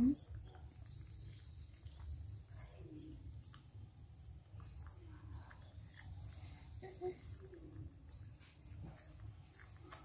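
Faint, short, high chirps, each falling in pitch, repeating about once a second, with a few soft, lower falling calls around three and seven seconds in, over a low rumble.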